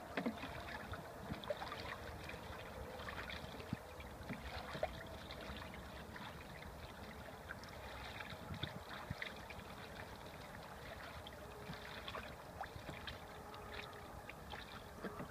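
Ducks bathing in a shallow plastic tub of water, with irregular small splashes and dabbling, a few louder splashes in the first five seconds.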